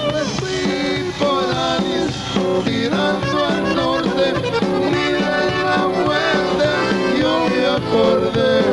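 Live Tejano band playing, with accordion in the mix.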